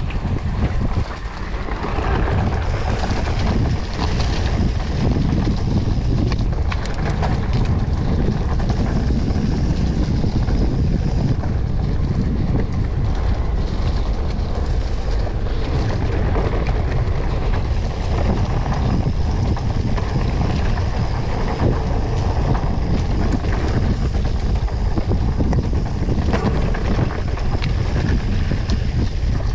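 Mountain bike riding at speed on a dirt forest trail: steady wind buffeting the camera microphone, over the rumble of knobby tyres on dirt and frequent short knocks and rattles from the bike hitting bumps.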